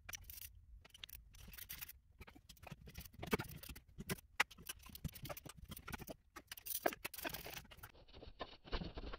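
Faint, scattered clicks, taps and scrapes of metal parts being handled in a car's engine bay during header work on a big-block V8.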